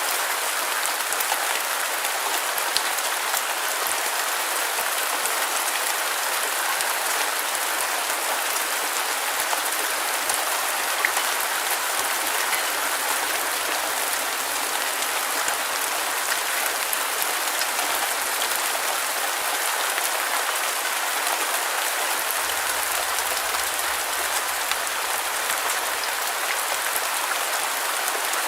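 Steady rain falling: an even hiss with many small drop ticks through it, unchanging throughout.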